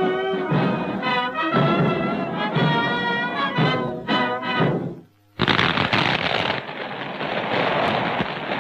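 Brass-led band music with wavering sustained notes, broken off about five seconds in by a short gap and followed by a dense, noisy wash of sound with no clear notes.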